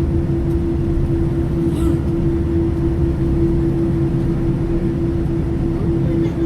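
Boeing 787 engines running, heard as a steady low rumble with one constant hum over it.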